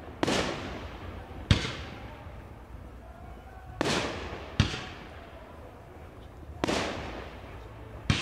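Fireworks display: aerial shells going off in six sharp bangs spaced one to two seconds apart, each trailing off in an echo.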